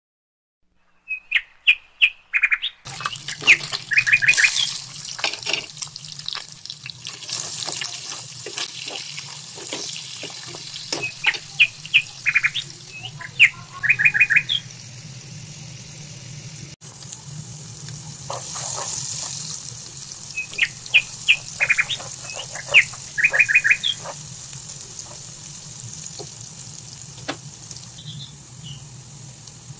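Birds chirping in short, quick runs of high notes that come in clusters several times, over a steady low hum.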